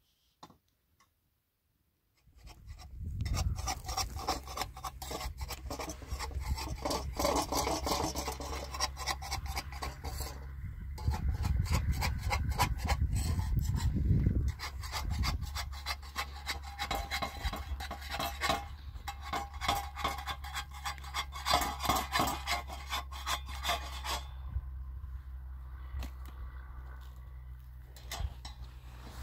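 Wood fire crackling under a griddle, a dense run of fast, irregular pops and snaps starting about two seconds in, over a steady low hum.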